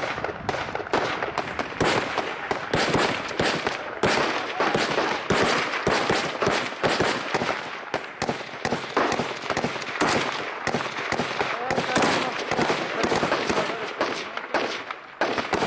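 Heavy small-arms fire in a battle: rapid gunshots and bursts of automatic fire following one another without a break, some louder and some fainter.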